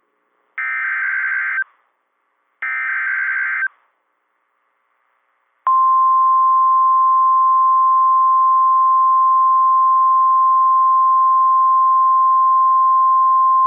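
NOAA Weather Radio emergency alert signal: two short bursts of digital SAME header data, each about a second long and a second apart. After about two seconds of quiet comes the steady 1050 Hz warning alarm tone, a single unwavering tone that starts about six seconds in and holds. It announces a severe thunderstorm warning.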